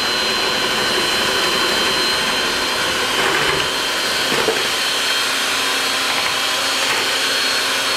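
Electric hand mixer running at a steady speed with a steady high whine, its twin beaters whisking egg-yolk custard and heavy cream in a glass bowl.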